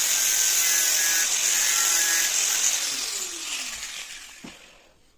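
Corded angle grinder grinding down a window-hardware part that did not fit, a loud steady hiss. About three seconds in it is switched off and the disc winds down with a falling whine, fading out near the end.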